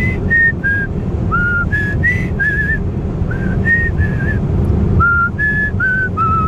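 A tune whistled in short notes, wandering up and down in pitch in quick phrases with brief pauses, over the steady low road noise of a moving car.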